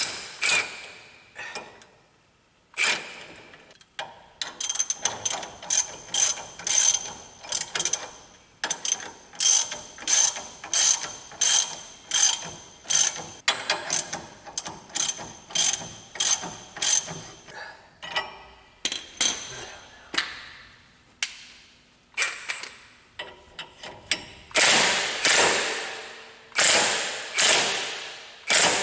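Metal tools working a stuck rear hub assembly loose on a 2007 Ford Expedition: a long run of sharp metallic clicks and knocks, about two a second, each ringing briefly. Near the end the strikes become heavier and fuller.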